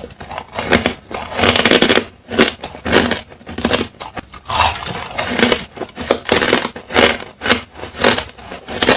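Ice being bitten and crunched close to the microphone: a run of sharp, crackly crunches, roughly one or two a second, each breaking off into smaller crackles.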